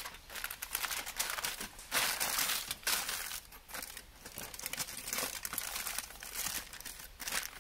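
Aluminium foil crinkling in irregular bursts as it is folded and creased by hand into a packet.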